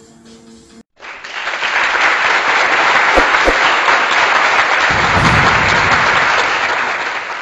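Loud applause that begins suddenly about a second in and holds steady, tailing off near the end, used as an outro sound effect.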